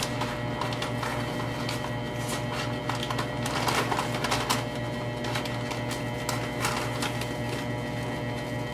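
Electric overhead mixer running steadily, stirring wastewater into a vortex, with a constant hum and irregular ticking and crackling that is thickest about four seconds in.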